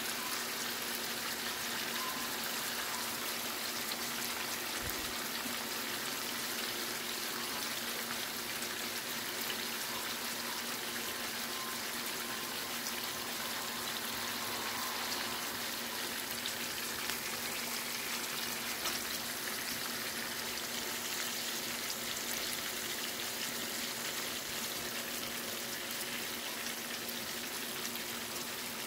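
Pork chops pan-frying in butter and oil with garlic: a steady sizzle full of fine crackles and pops.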